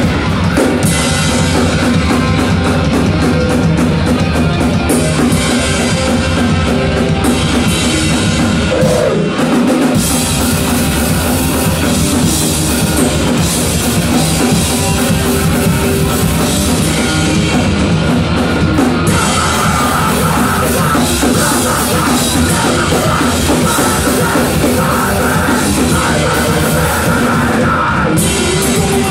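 Punk band playing live: a drum kit and electric guitar playing loud, fast rock, with a brief break in the bass and drums about nine seconds in.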